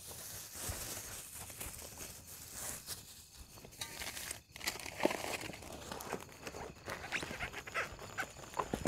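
Rustling and crinkling of camping gear and a bag being handled and packed away, with scattered footsteps on dirt ground.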